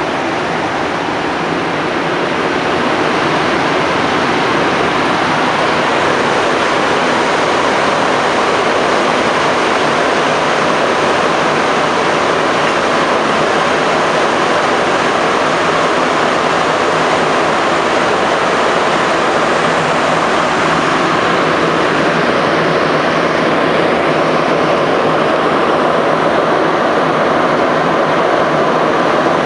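Montreal Métro MR-73 train on rubber tyres, heard from inside the car: a steady, loud rush of running noise. It builds over the first few seconds as the train picks up speed out of the station, then holds level through the tunnel.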